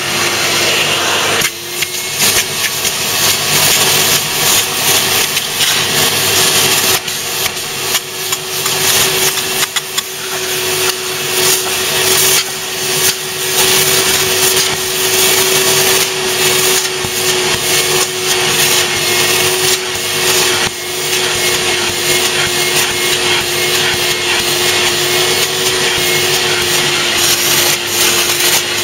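A vacuum motor runs steadily with a constant whine while its hand-held upholstery nozzle is drawn over fabric seat cushions, sucking with a loud hissing rush that dips briefly now and then.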